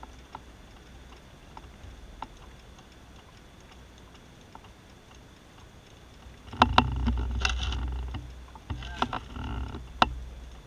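Aprilia Tuono V4 R's V4 engine, fitted with a full titanium Akrapovic exhaust, idling low, then blipped twice in quick succession, each burst of throttle lasting about a second, with sharp cracks from the exhaust at the start of the first and after the second.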